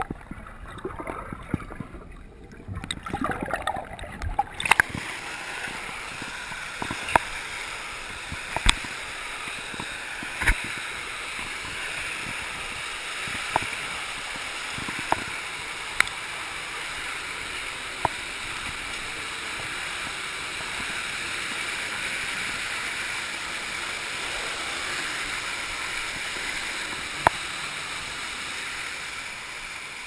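Rushing water of a natural waterfall slide and stream. For the first few seconds it is heard muffled and gurgling from underwater, then as a steady rush, with sharp knocks every second or two.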